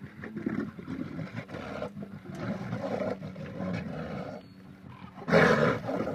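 A big cat vocalising with low, rough calls, then a much louder roar about five seconds in.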